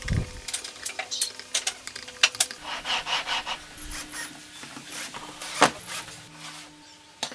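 Screws being set by hand and then driven with a cordless drill-driver through aluminium shaft-support blocks into a wooden board. The sound is a run of clicks, scrapes and rattles of small metal parts on wood, with one loudest knock about three quarters of the way through.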